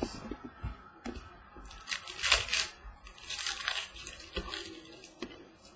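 A 2015 Panini Prizm football trading-card pack's plastic wrapper being torn open and crinkled by hand, in rustling bursts about two seconds in and again around three and a half seconds, with a few light clicks of cards being handled.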